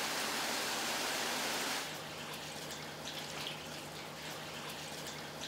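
Rushing water, a steady even hiss that drops off abruptly about two seconds in to quieter water with small scattered splashes and drips. A steady low hum runs underneath.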